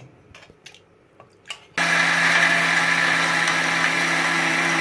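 A few light clicks and knocks, then about two seconds in an electric mixer grinder (mixie) starts suddenly and runs loud at a steady speed, grinding pressure-cooked tomato, onion and spices into a wet paste.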